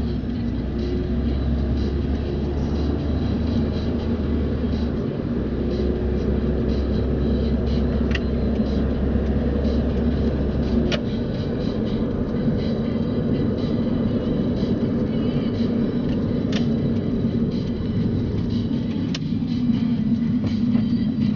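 Car driving on a road: steady engine and tyre noise from a moving car, with a low hum that changes about halfway through and a few faint clicks.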